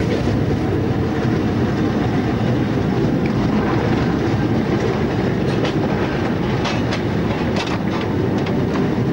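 Interurban tram railcar running along the track, heard from the driver's cab: a steady rumble with a few sharp clicks in the second half.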